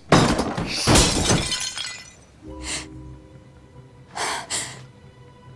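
A ceramic vase smashing on the floor: a loud crash, then a second crash about a second later as it breaks apart. Soft music with held notes follows.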